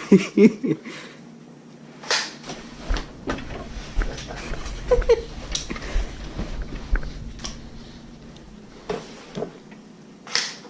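Scattered knocks, thumps and clicks at irregular intervals, with two stronger low thumps at the very start.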